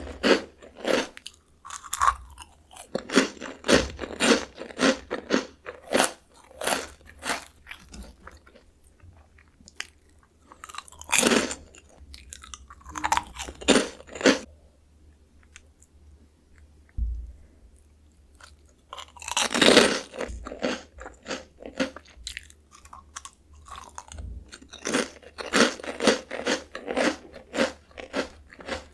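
Close-miked crunching and chewing of Jagalchi, a crunchy seafood-flavoured Korean bagged snack. Quick runs of crunches are broken by short pauses, with loud fresh bites about eleven and twenty seconds in.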